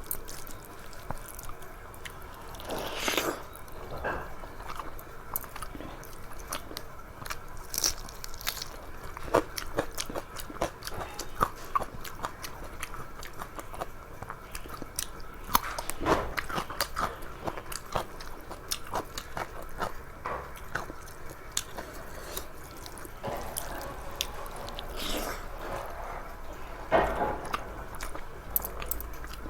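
A person eating close to the microphone: steady chewing and biting with wet mouth sounds and many small clicks, with a few louder crunchy bites now and then.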